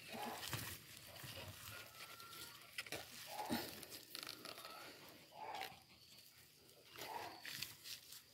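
Hand scraping and rustling through loose garden soil, with a few short animal calls in the background.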